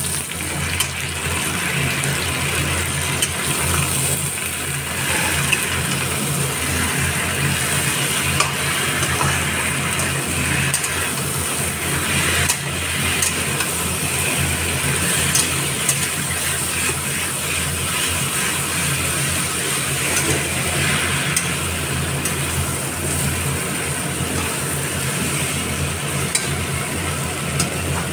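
Cauliflower and potato pieces sizzling in a steel kadhai while a metal spatula stirs and scrapes them, with scattered ticks of metal on the pan. A steady low hum runs underneath.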